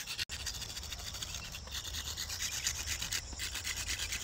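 A black drawing stick scraping on a concrete road surface in quick, repeated back-and-forth shading strokes.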